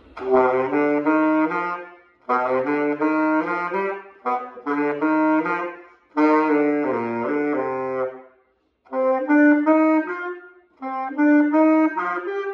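Unaccompanied tenor saxophone playing a melody in short phrases, with brief breath pauses between them.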